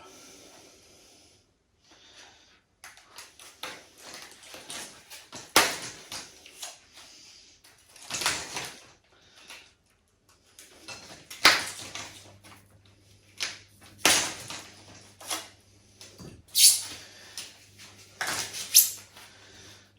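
Hard plastic baby-rocker parts being handled and a knife cutting and scraping small moulded bits off them, with irregular sharp knocks and clicks every couple of seconds.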